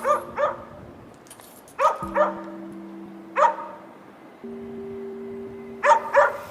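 A dog barking, short barks in groups of one to three, over background music of sustained chords.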